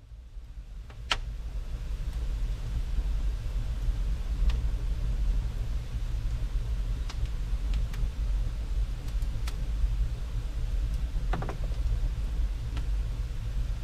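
Wood fire burning in a brick fireplace: a steady low rumble of the flames, with sharp crackles and pops from the burning logs every couple of seconds, the loudest pop about a second in and a cluster of crackles near the end.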